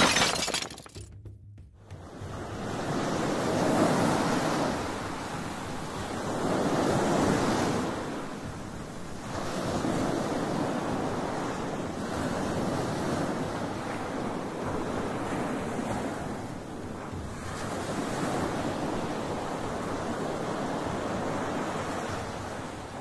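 Sea waves breaking on a sandy shore, the surf swelling and ebbing every few seconds. A brief sharp noise comes at the very start.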